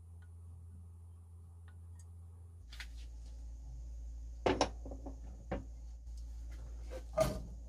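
Scattered clicks and knocks of kitchen utensils being handled: a wooden spoon and a plastic oil bottle against a stainless steel wok and the counter, with a sharp double knock about halfway and the loudest single knock near the end. A steady low hum runs underneath, joined by a faint high whine about a third of the way in.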